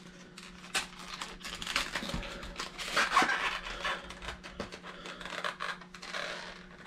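A clear plastic pack of soft-plastic swimbaits being opened by hand: a dense run of crinkling, crackling and clicking of plastic packaging, loudest about halfway through.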